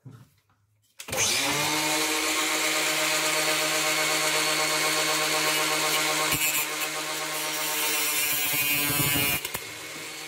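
A handheld power tool switches on about a second in and runs at a steady pitch while trimming the end of a lathe's digital-readout scale rail. It sounds harsher for about three seconds late on, then drops back to a quieter running note.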